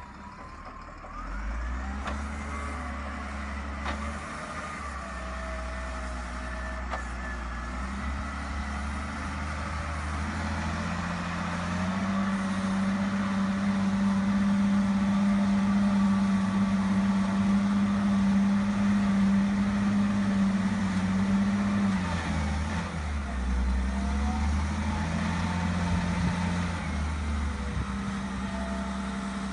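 Cat 950F Series II wheel loader's six-cylinder diesel working a dirt pile. The engine revs up under load about a third of the way in and holds high for roughly ten seconds. It eases off briefly, then climbs again as the bucket is lifted.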